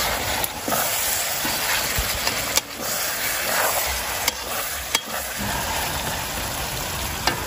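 Chicken curry sizzling in a large steel kadhai while a long metal ladle stirs it, with a few sharp clicks of the ladle against the pan.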